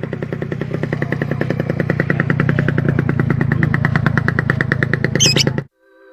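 Motorcycle engine running with an even, rapid pulsing beat, growing louder. A bird gives a short high chirp near the end, then the sound cuts off abruptly.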